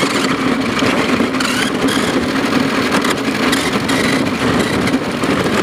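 Remote-control car driving, heard from a camera taped to its side: a steady motor whine under loud wind and rolling noise on the microphone.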